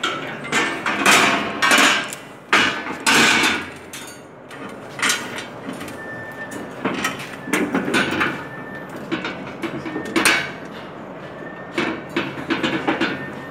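Irregular metal clanks and knocks from the black steel folding legs of a Longde D7 tile-cutting table, being handled and fitted to its frame, with cardboard packaging rustling between the knocks.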